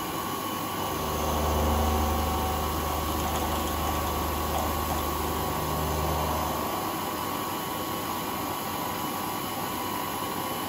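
Manual milling machine's end mill cutting an aluminium standoff under power feed: a steady high machine whine, with a strong low hum that comes in about a second in and stops about two-thirds of the way through.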